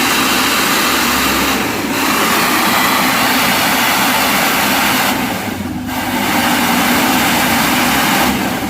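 Isuzu Trooper's 4JX1 diesel engine running, under a loud steady hiss that drops away briefly twice.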